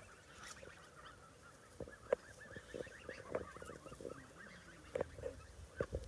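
A flock of month-old white domestic goslings calling, with many soft overlapping peeps and a few louder short honks scattered through.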